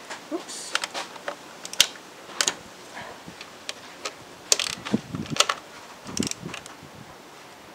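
Ratcheting wrench clicking and metal clinking against the bolts while the bolts of a Honda Ruckus's drive cover are snugged down by hand. The clicks come irregularly, some in quick little runs.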